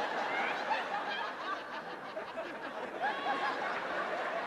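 A comedy club audience laughing: many voices at once, a steady wash of laughter.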